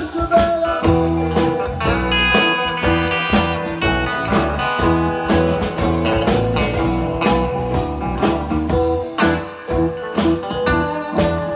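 A blues band playing an instrumental passage of a blues number, with guitar over bass and a steady drum beat.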